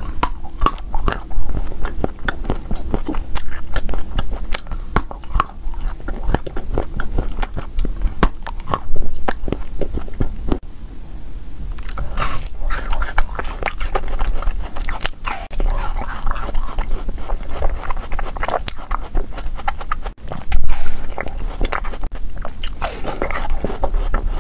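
Close-miked biting and chewing of frozen ice cream bars, with many sharp crunching bites. About halfway through, a fresh bar is bitten and the chewing becomes denser and noisier.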